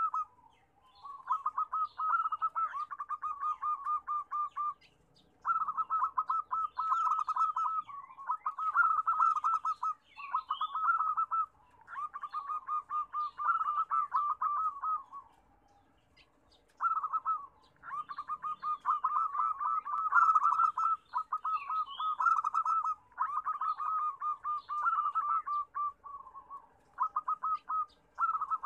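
Zebra dove (perkutut) singing: phrases of rapid, staccato cooing notes a few seconds long, repeated with short pauses between them. Faint high chirps sit above the cooing.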